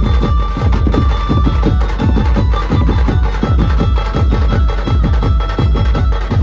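Dhumal band music played loud: fast, dense drumming with heavy bass and a held melody line over the beat.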